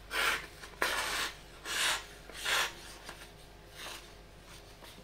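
The sharp folding-knife blade of a Total 15-in-1 multitool slicing through a sheet of paper in about five short, rasping strokes, louder in the first two seconds. The blade is new and cuts the paper cleanly.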